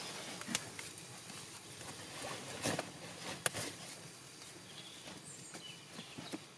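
Rustling of clothing and wood with a few sharp knocks and clicks as a man shifts about on a log bench.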